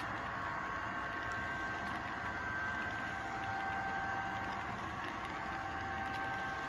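Model RoadRailer train rolling slowly past on layout track: a steady rolling rumble and hiss with faint thin whines in it.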